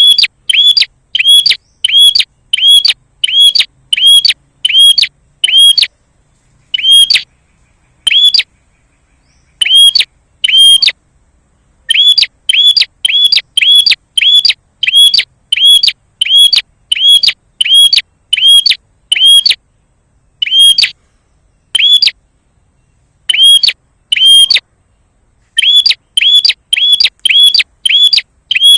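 Prinia (prenjak) calling a sharp, repeated chip note, about two a second, in loud runs broken by pauses of a second or two. This is a lure call used to provoke a caged prinia into answering.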